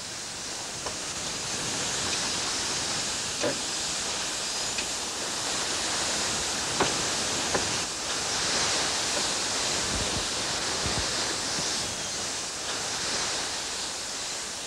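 Steady rush of water and spray along the hull of an ocean racing yacht sailing fast, with a few faint knocks from the boat's gear.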